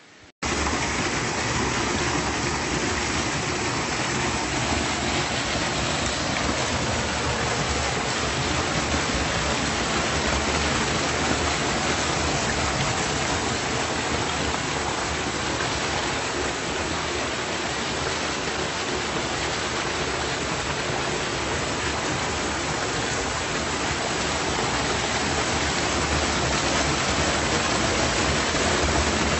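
Small waterfall on a river: water falling and rushing as a loud, steady, even noise that cuts in suddenly just after the start.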